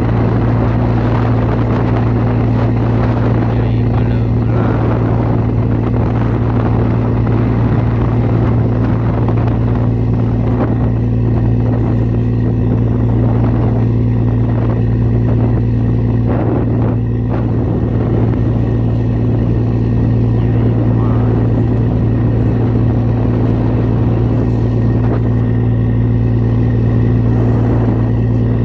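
A boat's engine running steadily at constant speed: a loud, even low hum that holds one pitch throughout, over a rushing hiss.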